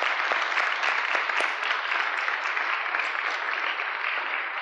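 A congregation applauding, many people clapping together, the applause slowly dying down near the end.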